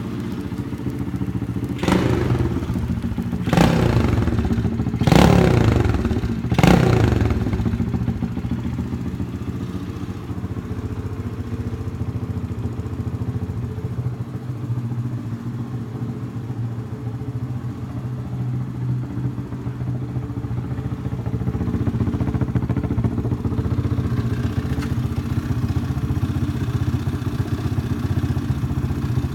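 Freshly rebuilt pit bike's small single-cylinder engine running. Four quick throttle blips come in the first seven seconds, then it settles back to a steady idle.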